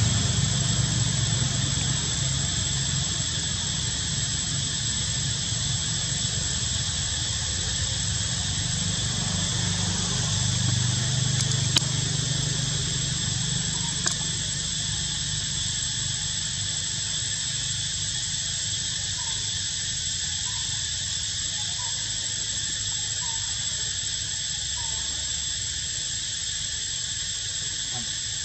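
Steady high-pitched drone of insects, with a low rumble beneath that eases off after the first half. In the second half, a few short faint chirps come about once a second.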